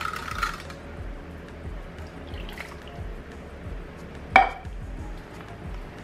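Milk pouring into a ceramic slow cooker crock, with one sharp knock about four and a half seconds in; soft background music underneath.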